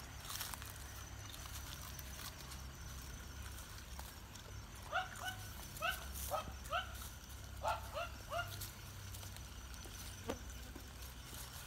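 An animal's short calls, about ten of them, each rising slightly in pitch, come in a quick run from about five to eight and a half seconds in, over a low steady hum.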